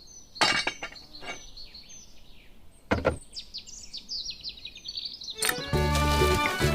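Small birds chirping and twittering, with a few sharp knocks, then music with a steady beat starts near the end.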